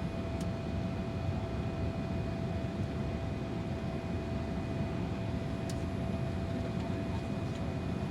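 Steady cabin noise of a Boeing 787-8 in flight: an even rush of airflow and engine noise with a low rumble and a faint steady hum.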